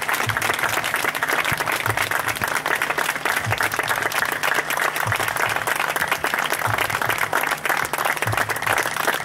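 Audience applauding steadily, with a low thump repeating at even intervals underneath.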